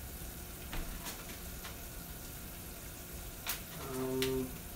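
Sugar syrup boiling in a pot on the stove, a steady hiss, with a few faint ticks of small flavoring bottles being knocked about in a cabinet. Near the end a man hums briefly.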